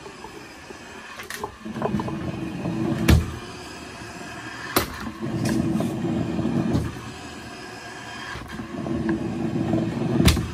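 Roddie R8 hydraulic pipe-bursting machine working its pulling cylinders on the rod: three stretches of steady hydraulic running, each about two seconds, with quieter gaps between and a few sharp knocks, the loudest about three seconds in and another right at the end.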